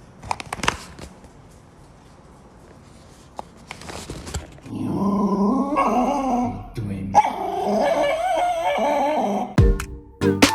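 A dog whining in two long stretches with a wavering pitch. A few sharp clicks come before it, and a music beat starts near the end.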